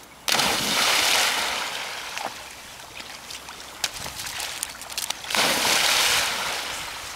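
A springer spaniel diving into a river: a big splash about a quarter of a second in, its spray fading over a couple of seconds, then a second big splash of water about five seconds in.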